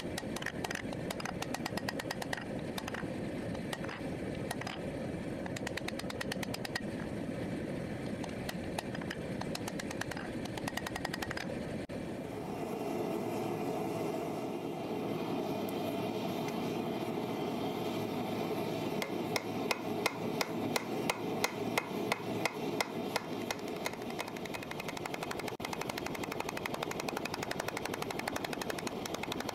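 Hammer striking red-hot file steel on an anvil: a quick, even run of sharp metallic blows, with some harder strikes in the second half, as the snake's scales are worked in.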